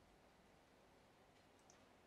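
Near silence: faint room tone with a couple of soft clicks near the end.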